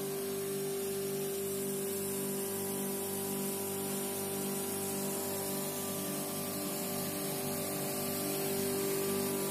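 Background instrumental music with a held tone and a steady low pulse about twice a second.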